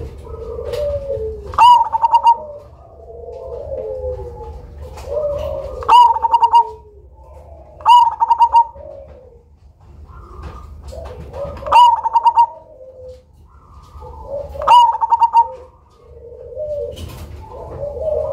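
Black 'cemani' zebra dove (perkutut) singing its cooing song over and over. Soft rolling coos lead each time into a loud, rapid stuttering phrase, about five phrases in all.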